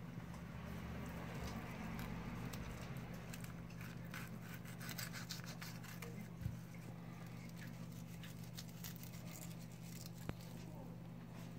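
Knife scraping and slicing meat off the bone of a bluefin tuna collar: a run of short rasping strokes, with a soft knock about halfway through. A steady low hum runs underneath.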